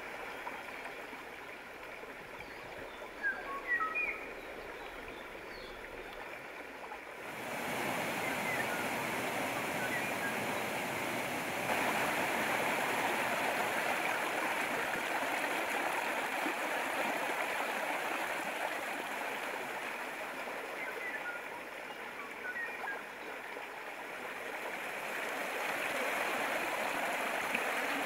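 Steady rush of flowing water, like a stream, getting louder about seven seconds in, with a few short high chirps near the start and again later.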